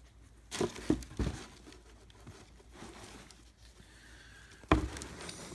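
Handling of a cardboard shoebox and its tissue paper: crinkling paper and light cardboard bumps in two spells, a cluster about half a second to a second and a half in, and a louder one starting near the end.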